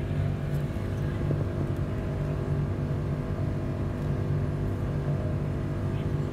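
Steady low drone of a car's engine and road noise heard from inside the cabin while driving in traffic.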